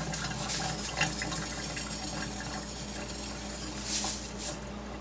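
Coarse sea salt poured from a canister's spout into a wet cast iron skillet, the grains hissing and pattering onto the pan, loudest in a burst about four seconds in, over a steady hiss.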